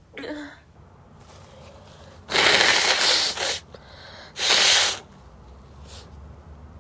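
A woman sneezing: two harsh, breathy sneeze blasts with no voiced "achoo" in them, the first about a second long and the second shorter, about two seconds later.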